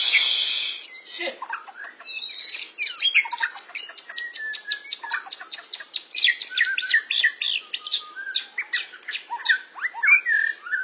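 Caged white-rumped shamas (murai batu) singing: a dense, varied run of rapid whistles, chirps and quick rattling note strings, several birds overlapping. A loud harsh hiss fills the first second.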